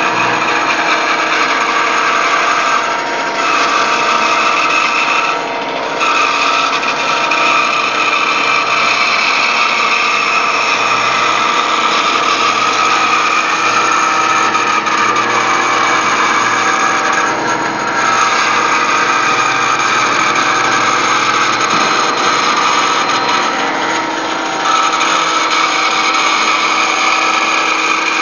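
Woodworking bandsaw running and cutting through a thick wooden block along a curved line, a steady machine whine mixed with the rasp of the blade in the wood. The cutting noise dips briefly a few times.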